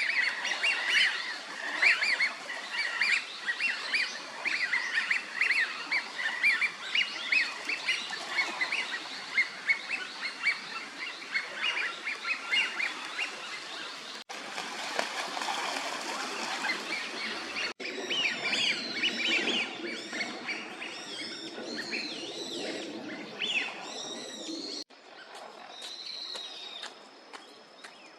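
A flock of Eurasian wigeons calling, the drakes' whistles coming thick and overlapping, with fewer calls and some higher chirps in the later stretches. It breaks off sharply a few times.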